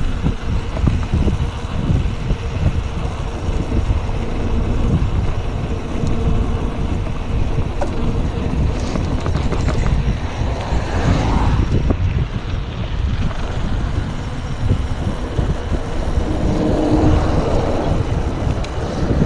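Wind buffeting the microphone of a camera on a moving mountain bike, with the tyres rumbling on a gravel road.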